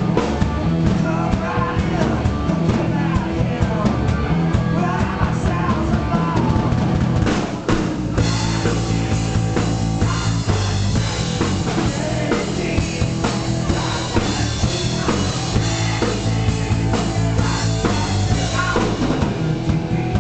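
Live rock band playing loudly: electric guitar, bass guitar and drum kit, with a steady beat. The music dips briefly about eight seconds in, then carries on.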